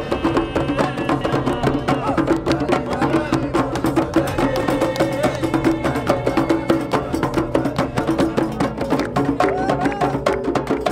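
Hand drums beaten in a quick, steady rhythm while a group sings along: traditional campfire drumming and singing.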